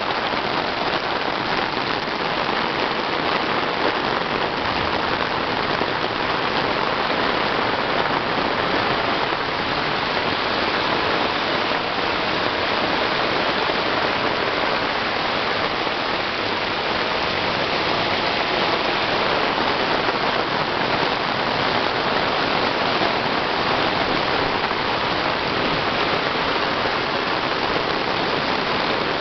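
Heavy rain pouring down, a dense, steady hiss that keeps up without a break.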